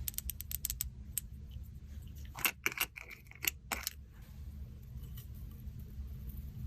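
Slime being squeezed and mixed by hand, giving sharp clicks and pops: a quick run of small clicks in the first second, then louder pops around the middle, over a steady low hum.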